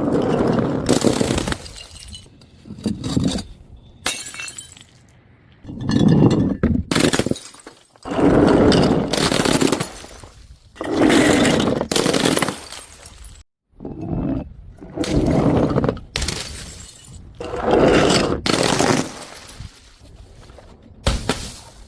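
Glass bottles shattering one after another: a sudden burst of breaking glass every two to three seconds, about eight in all, each dying away into tinkling fragments.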